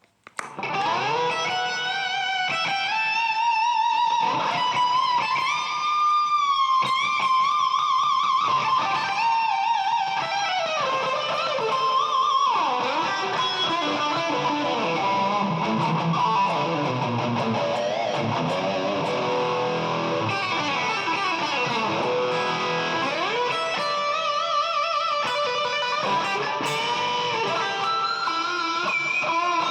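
Electric guitar played through effects pedals, starting about half a second in: sustained lead notes bent and shaken with vibrato, moving later into lower, fuller playing.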